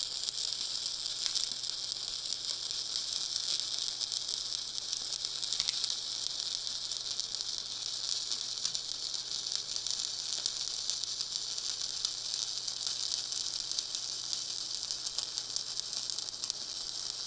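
Shielded metal arc (stick) welding with an E7018 electrode at about 115 amps: a steady crackling sizzle as the rod is dragged along a steel lap joint.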